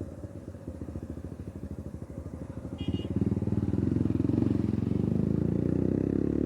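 Suzuki Gixxer's single-cylinder engine and exhaust, pulsing at low revs, then opened up about three seconds in, revs climbing steadily as the bike accelerates.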